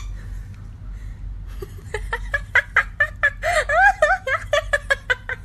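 A woman laughing in quick, high-pitched bursts, starting about a second and a half in.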